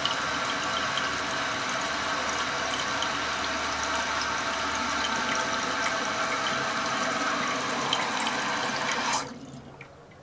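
Toilet tank refilling through a newly installed Korky QuietFill fill valve: a steady rush of water with a faint whine, which stops suddenly about nine seconds in as the valve shuts off at the full level. A faint trickle and a couple of drips follow.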